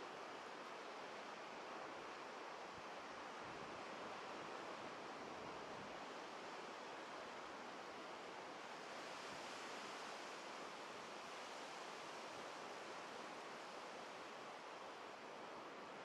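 Ocean surf breaking and washing up a sandy beach: a steady, even rush of water. A wash briefly grows brighter and hissier about halfway through.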